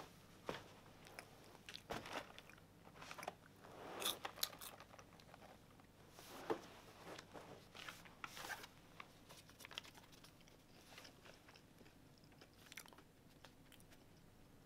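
Faint crunching and chewing of popcorn, with short rustles and clicks from a cardboard popcorn box being handled.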